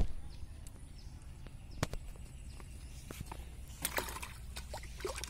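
Handling noises as a small fish is taken off a hook and put into a plastic bucket: scattered light clicks and taps, busier near the end, over a low steady rumble.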